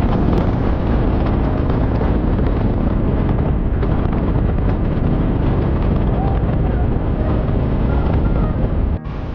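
Wind buffeting the microphone over the running of a moving vehicle, a loud, steady rumbling noise that cuts off abruptly near the end.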